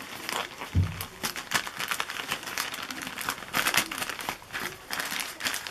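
A thin plastic courier mailer crinkling and crackling as it is handled and cut open with small scissors. A short dull bump comes about a second in.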